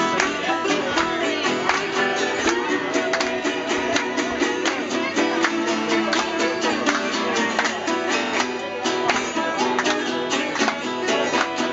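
Live acoustic folk music: an acoustic guitar strummed in a brisk, steady rhythm, with a second plucked stringed instrument picking along.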